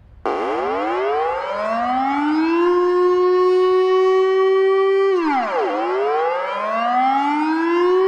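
Netherlands emergency warning siren sound: a siren tone glides up over about two seconds and holds steady. A little after five seconds in it drops sharply and winds up again.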